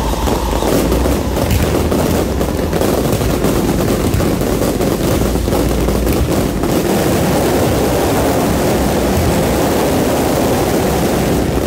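Dense fireworks barrage: many aerial shells and rising comets bursting at once in a continuous, rapid crackle of reports.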